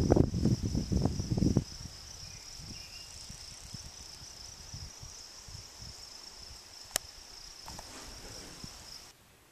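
Insects chirring in a steady, high-pitched chorus in summer countryside. Wind buffets the microphone with a loud low rumble for the first second and a half, there is a single sharp click about seven seconds in, and the sound cuts off shortly before the end.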